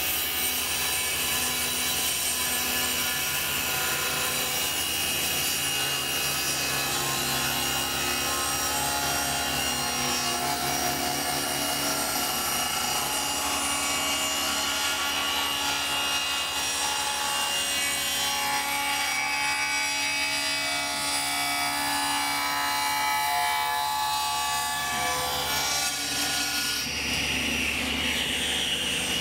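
Table saw running and cutting a miter through a curved wooden molding that is fed slowly by hand, a steady sound throughout. Near the end the cut finishes and the saw runs free.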